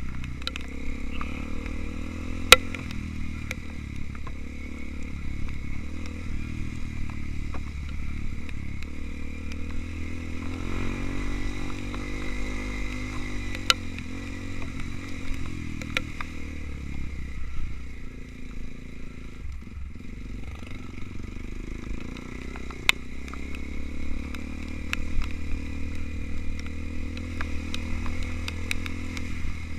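Trail motorcycle engine running at low to moderate revs, its pitch rising and falling as it is ridden, with occasional sharp knocks and clatter.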